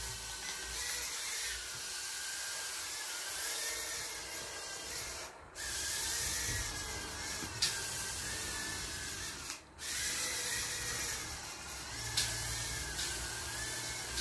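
Eachine E010 micro quadcopter's tiny brushed motors and propellers whining as it flies, the pitch wavering up and down with the throttle. The sound drops out briefly twice, about five and ten seconds in.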